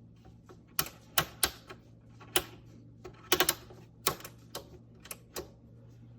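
About a dozen sharp, irregular clicks and taps of hard objects being handled, over a faint steady low hum.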